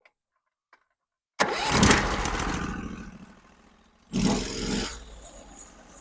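Norwood HD36 portable sawmill's engine starting up and revving about a second and a half in, then easing off. A second short rev comes about four seconds in.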